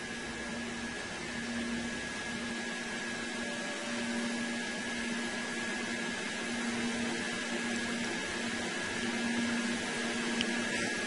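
Steady hiss of an open communications audio feed with a constant high tone, under a low hum that swells and fades about every two seconds.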